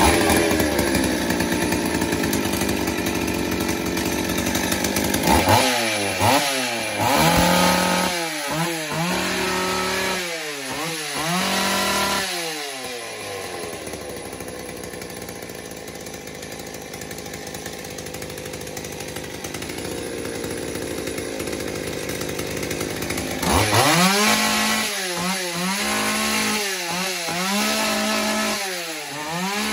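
A freshly rebuilt and modified McCulloch 610 two-stroke chainsaw running with no bar and chain fitted. It runs steadily, is blipped up and down in quick repeated revs for several seconds, settles back to a steady run, and is revved up and down again in repeated blips near the end.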